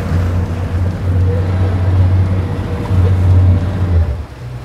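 Boat's outboard motors running in reverse as the boat backs down, a loud, deep, steady drone that dips briefly twice and falls away about four seconds in.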